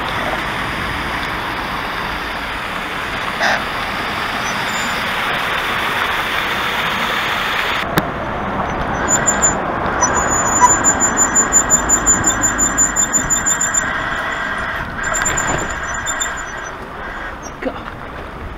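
Wind and road noise while riding a loaded touring bicycle on a road. A single click comes about eight seconds in, then a high-pitched squeak repeats several times a second for about five seconds.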